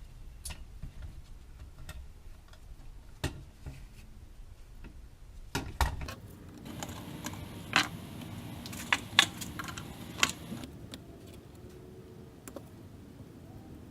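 Scattered clicks and light metal taps of hand tools and small parts being handled on a Holley carburetor's throttle plate, busier in the middle.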